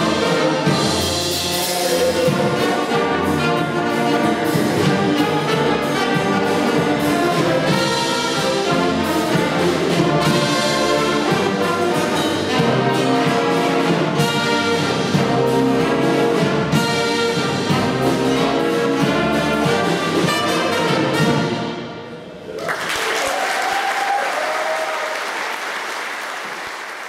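Concert wind band with brass playing a piece to its final chord about 21 seconds in, then audience applause that slowly fades out.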